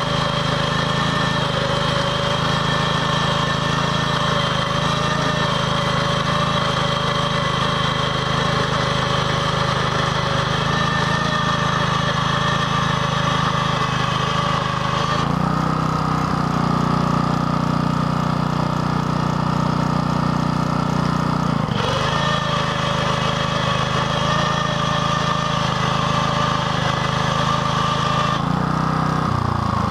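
Gasoline engine of a BCS 850 walk-behind tractor running steadily under load, driving a Berta rotary plow through hard, unplowed sod. Its note shifts abruptly for several seconds past the middle, then returns.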